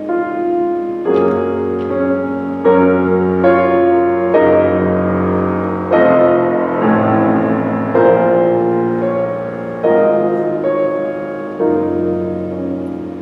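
Grand piano playing a slow, lyrical piece: chords and melody notes struck every second or two and left to ring out.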